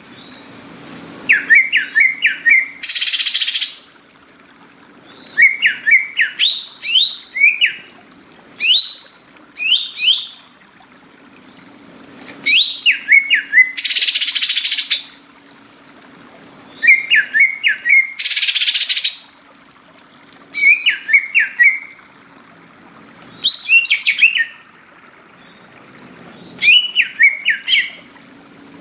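A green leafbird (cucak ijo) in full song: loud phrases of quick whistled, up-and-down notes repeated every four seconds or so, three of them followed by a harsh, rasping buzz about a second long. A faint steady low hum runs underneath.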